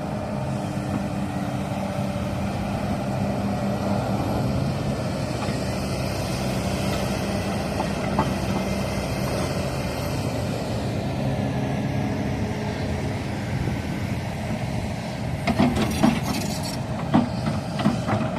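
Hydraulic excavator's diesel engine running steadily under load while it digs, with several sharp metallic clanks near the end.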